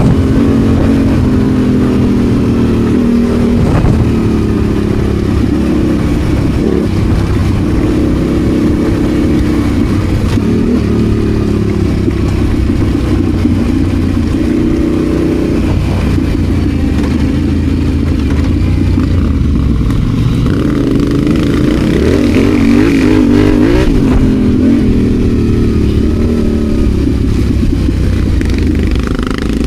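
Adventure motorcycle engine running off road, its pitch rising and falling repeatedly as the throttle is opened and closed.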